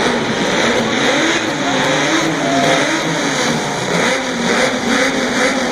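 Chevrolet Opala Old Stock race-car engine revving loudly, its pitch rising and falling over and over as the throttle is blipped.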